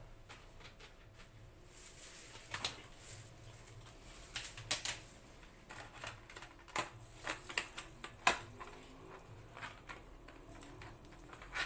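Irregular light clicks and taps of a disposable aluminium foil tray and a plastic sauce container being handled by gloved hands, with a few sharper clicks now and then.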